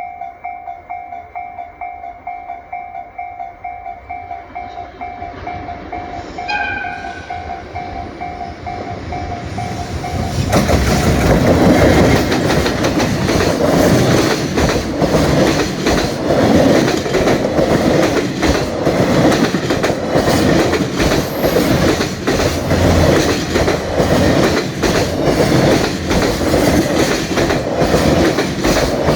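Japanese level-crossing warning bell ringing in a steady, fast repeating two-tone clang, with a brief higher tone about six seconds in. About ten seconds in a freight train reaches the crossing and passes, loud, its wheels clattering rhythmically over the rail joints and drowning out the bell.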